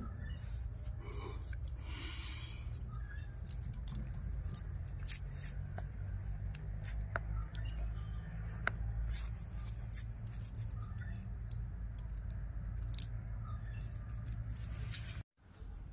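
Small scrapes and clicks of hands tying a thread knot around a plastic pipe, over a steady low rumble. The sound cuts out briefly near the end.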